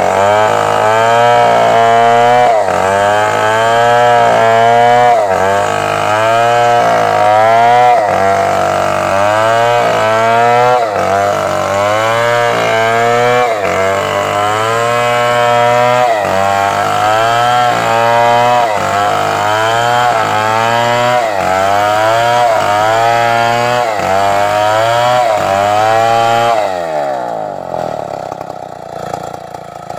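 Stihl MS 381 two-stroke chainsaw cutting a coconut palm trunk, its engine speed rising and falling in a regular cycle about every second and a half as it works through the wood. Near the end it drops back toward idle, then revs up again.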